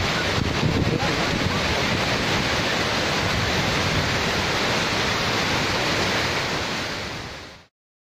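A tall waterfall pouring over rocks into its plunge pool, a loud, steady rush of water that fades out near the end and stops dead.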